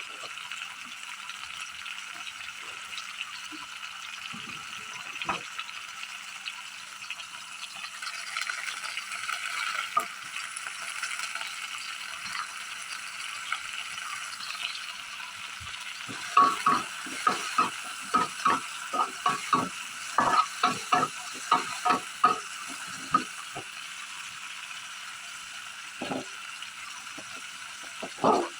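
Food sizzling as it fries in a pan, a steady hiss throughout. About halfway through, a utensil knocks and scrapes against the pan in quick strokes, roughly two or three a second for several seconds, with a couple of single knocks near the end.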